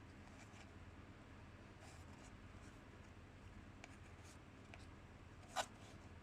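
Quiet hand-handling of a small model aircraft's packaging: a few faint scrapes and ticks, then one sharp click about five and a half seconds in.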